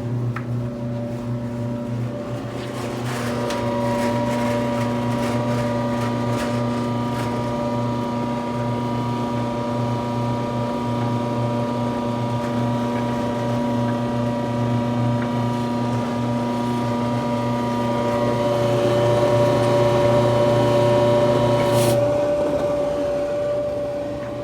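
Electrolux electric dryer motor running with a loud, steady multi-toned hum and whine. It grows louder a few seconds before the end, then most of it cuts off abruptly about 22 seconds in, leaving a fainter steady tone.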